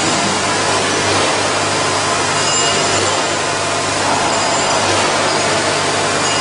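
Packing-line machinery running: a loud, steady mechanical hum and hiss with a low throb about every two seconds.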